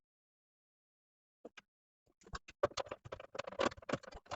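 Silence, then two light clicks about a second and a half in, followed from about two seconds in by a dense run of quick clicks and scratches. This is cable cores and terminal hardware being handled while the sounder-circuit wiring is disconnected from a fire alarm panel.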